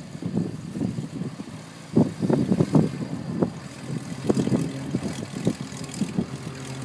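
Gusts of wind buffeting the microphone in irregular low thumps, over a light aircraft's piston engine idling steadily, its hum setting in about two seconds in.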